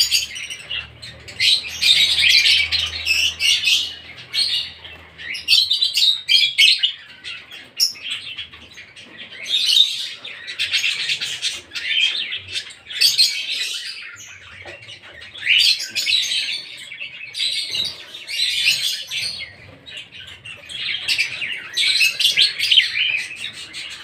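Budgerigars chirping and chattering in repeated raspy, high-pitched bursts of about a second each, with short pauses between.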